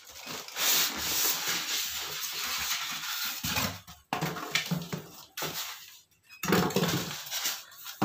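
Cardboard packaging and plastic wrap rustling and scraping as an electric motor is lifted out of its box. The loudest crinkling comes in a long stretch from about half a second in, then in shorter broken bursts.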